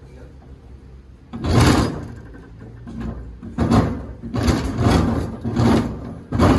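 JUKI LG-158 double-needle walking-foot industrial sewing machine stitching slowly through a thick stack of denim layers, barely oiled. A single heavy clunk comes about a second and a half in, then from about three and a half seconds the stitches follow as a rhythmic run of thuds, two to three a second, over a low motor hum.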